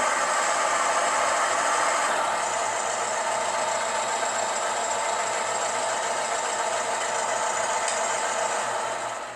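Uhlenbrock sound module in a model VW playing a recorded engine-running sound through its small loudspeaker. The sound runs steadily, eases a little about two seconds in, and drops away at the very end.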